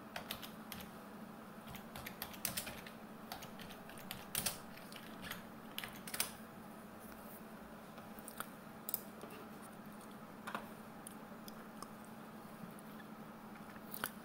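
Faint computer keyboard typing: irregular key taps in short runs, with a few separate clicks, over a steady low hum.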